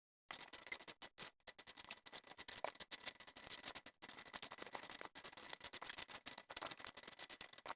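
Small steel fishing hooks rattling and clicking as they are shaken out of their boxes: a dense run of rapid, light clicks that starts about a third of a second in and stops near the end.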